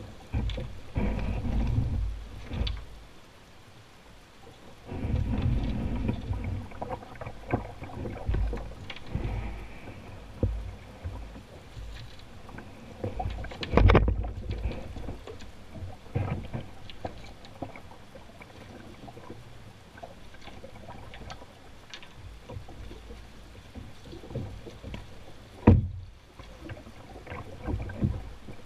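Canoe being poled up a shallow, rocky riffle: the pole knocks against stones on the riverbed over rushing water, with a sharp loud knock about halfway through and another near the end. Low scraping rumbles come as the canoe rubs the shallow bottom.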